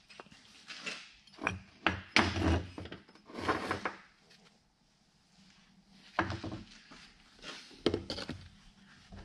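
Metal parts of a disassembled automotive A/C compressor being handled and set down on a workbench: a run of irregular knocks and clinks, with a quiet pause about halfway through.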